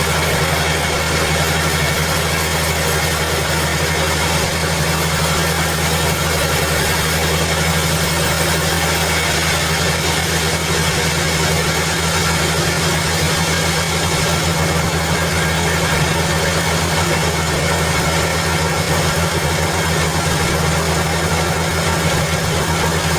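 Sawmill machinery running steadily: a constant low hum with a broad hiss over it, without change or pause.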